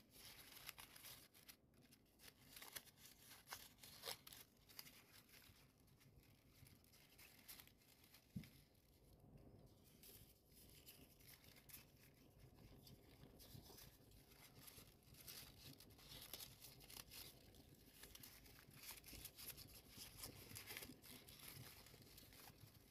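Faint, intermittent rustling and crinkling of folded paper as origami units are slotted into one another by hand.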